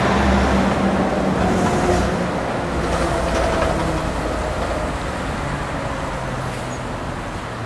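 A heavy tanker truck's engine runs with a low drone as it crosses a road bridge, slowly fading as it pulls away, over the steady rush of a river.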